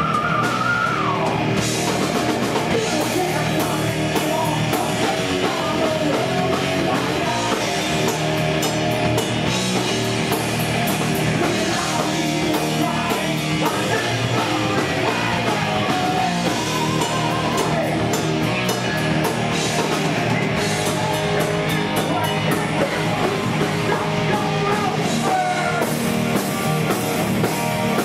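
Live heavy metal band playing: distorted electric guitars, bass guitar and a drum kit, with a singer's vocals over them.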